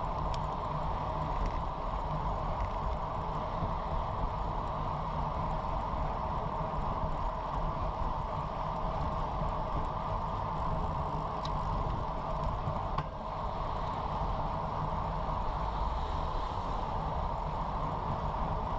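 Steady rush of wind and road noise on a bicycle-mounted microphone, from a road bike rolling at about 25 mph.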